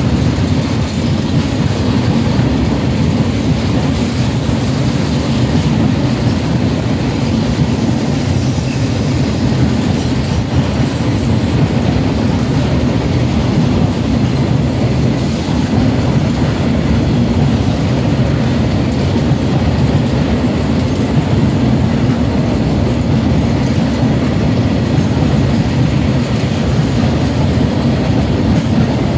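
Covered goods wagons of a freight train rolling past close by at a steady pace: a steady rumble and clatter of steel wheels on the rails.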